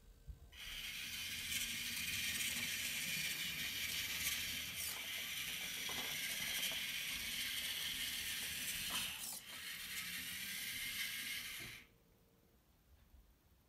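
The small electric gear motors of a tracked robot run its treads as it drives across a board, a steady whirring that starts about half a second in. It pauses briefly near nine seconds and stops about twelve seconds in.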